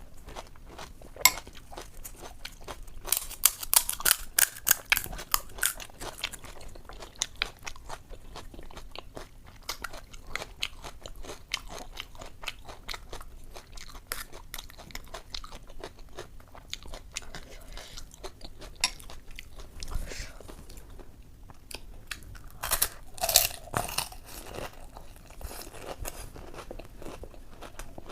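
Crunching and chewing of ghugni puchka, the crisp fried pani puri shells cracking between the teeth. There are two louder runs of crunching, about three seconds in and again a few seconds before the end, with quieter chewing in between.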